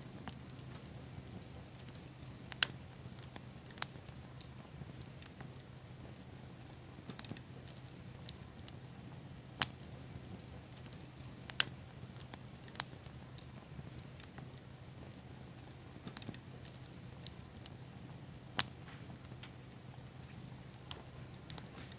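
Small campfire of pine cones and tree seed pods crackling: a sharp pop every couple of seconds over a soft, steady hiss of burning.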